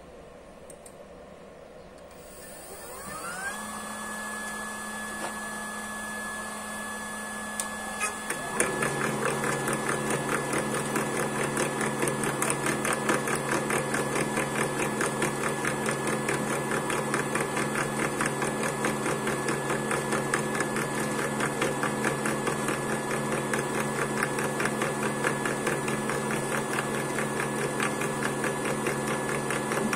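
Homemade CNC lathe starting up: a motor spins up with a rising whine that settles into a steady high tone about three seconds in. About five seconds later the machine gets much louder, with a fast, even rattle as it turns and works the octagonal wooden blank with its 6 mm end mill.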